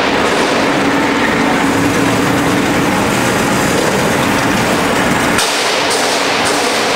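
Continuous sesame seed roasting machine running: a loud, steady mechanical rattle and hiss. The low rumble drops out suddenly about five seconds in.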